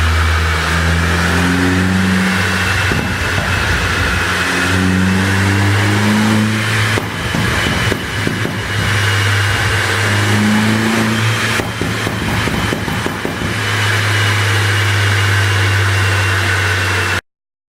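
Mini Cooper S's turbocharged four-cylinder engine revving hard on a chassis dynamometer, with a few sharp exhaust cracks from its pop-and-crackle tune partway through. The sound cuts off abruptly near the end.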